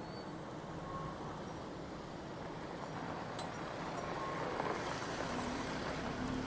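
A car's engine running as it pulls up close, growing a little louder about halfway through.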